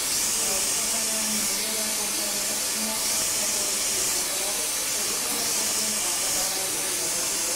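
Steady hiss, strongest in the high register, with a faint low hum coming and going beneath it.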